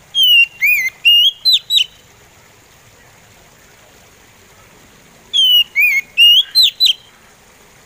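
Oriental magpie robin singing slow, whistled phrases: about five clear notes that slide down and up, each phrase under two seconds. The same phrase comes twice, the second about five seconds after the first.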